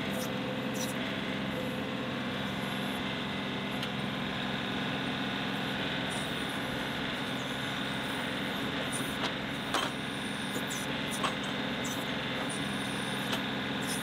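John Deere 2038R compact tractor's diesel engine running steadily at full throttle, powering the 270 backhoe's hydraulics as the boom and bucket push down to lift and shift the tractor sideways. A few short sharp clicks come in the second half.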